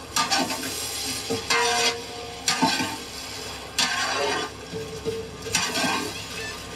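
A metal ladle stirring and scraping okra fry with grated coconut in a large frying pan, one stroke every second or so over a faint sizzle.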